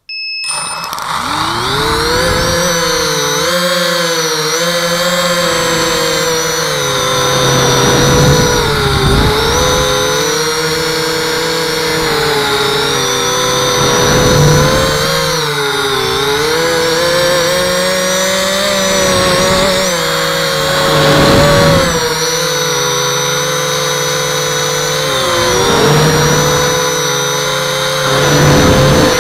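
Quadcopter's brushless motors and propellers whining, heard from the camera on board. The whine starts suddenly and climbs in pitch as the motors spin up, then rises and falls with throttle as it flies, with a few short gusts of rushing air noise.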